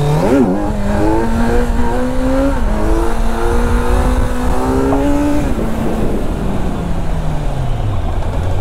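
Kawasaki Z900's inline-four engine under hard acceleration, its pitch sweeping up at once and then climbing. It dips once at an upshift about two and a half seconds in and climbs again. From about five and a half seconds it falls steadily as the throttle is rolled off and the bike slows.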